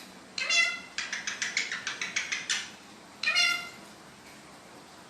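A pet parrot calling: two meow-like calls, one about half a second in and one a little after three seconds. Between them comes a fast run of short chattering notes, about six a second.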